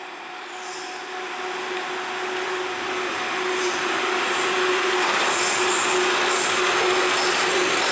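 Italian E.402B electric locomotive drawing near at the head of a train of coaches, growing steadily louder: a steady tone from the locomotive over rising rail and wheel noise, with high wheel squeals coming in over the second half.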